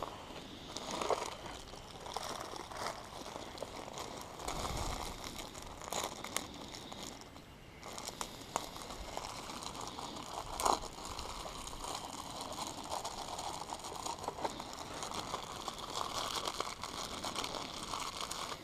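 Crinkling and rustling from something being handled, with many small clicks throughout, a low thump about four and a half seconds in and a sharper click around ten seconds.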